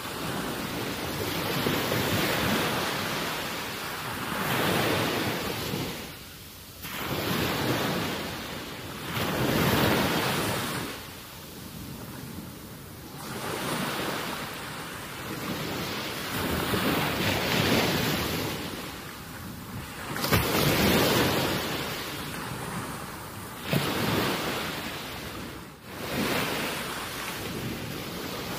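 Rushing wind and water noise from the seashore, swelling and fading every one to three seconds.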